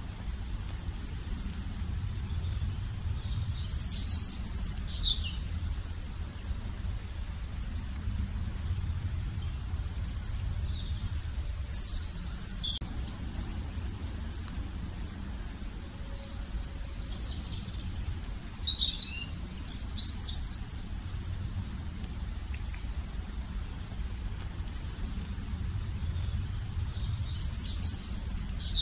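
Songbirds singing high, quick chirping phrases, a louder phrase about every seven or eight seconds with fainter chirps between, over a steady low background rumble.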